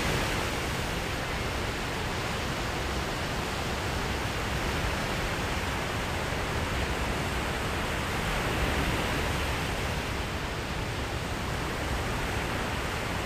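Surf washing onto a sandy beach: a steady rush of small breaking waves that swells slightly near the start and again about two-thirds of the way through.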